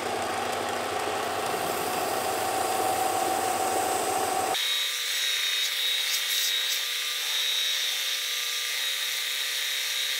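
Central Machinery bench belt sander running steadily while the edge of a glued leather holster blank is sanded against the belt to knock it down even. About halfway through the sound abruptly turns thinner and higher-pitched, as the footage is sped up fivefold.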